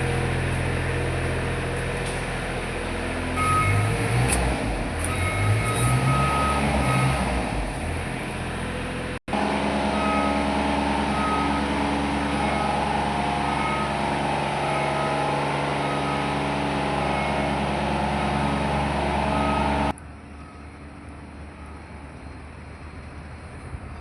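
Heavy machinery running with a steady, many-toned hum, and a short high beep repeating over and over. The sound cuts out for an instant about nine seconds in, and drops much quieter about twenty seconds in.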